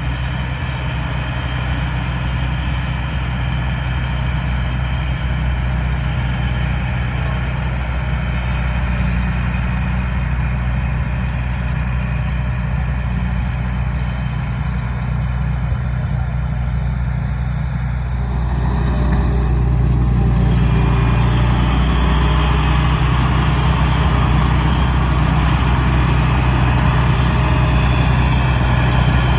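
Rice combine harvester engine running steadily. About 18 seconds in it grows louder and fuller, and it stays so.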